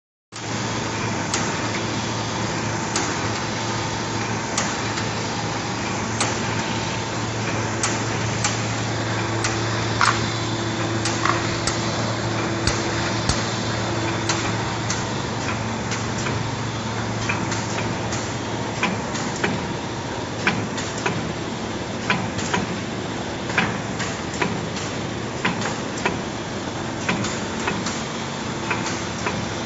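VOKEDA VKD660A automatic UV coating machine running, with a steady low hum and sharp mechanical clacks about every second and a half. The clacks come more often and less evenly in the second half.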